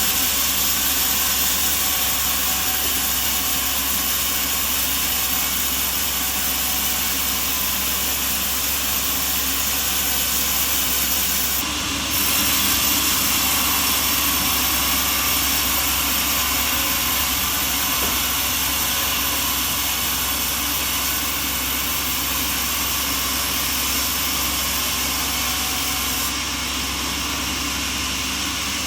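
Sawmill machinery running steadily: a continuous mechanical hum with a strong hiss, shifting slightly in tone after a brief dip about twelve seconds in and again near the end.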